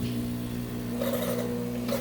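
Saeco Minuto HD8775 espresso machine's pump humming steadily as it pushes water through during the rinse cycle after a citric-acid descale, with a rougher noise joining about a second in.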